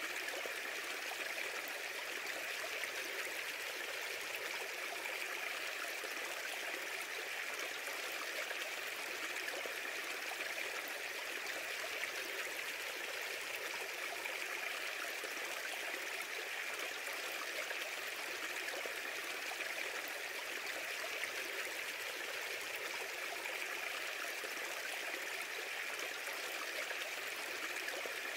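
A steady, unbroken rushing hiss, even in level throughout, with most of its energy in the upper-middle range and little low end.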